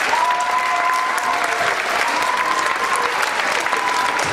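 Audience applauding steadily, with a thin held tone sounding three times over the clapping.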